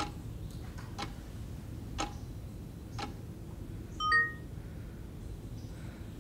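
Wall clock ticking, four ticks a second apart. About four seconds in, a phone gives a short electronic notification chime of several pitches at once, the loudest sound.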